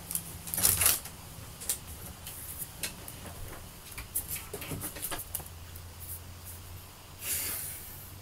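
Low steady room hum with scattered small clicks and rustles, and two brief rustling swishes, one about a second in and one near the end.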